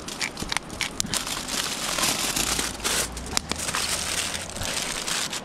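Aluminium tin foil crinkling and rustling in irregular crackles as it is folded and wrapped around a fish.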